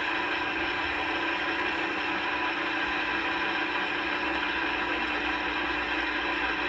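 Solberga SE2050M gear-head drill press running with its power feed engaged: a steady mechanical drone of motor and gearing, with several even tones.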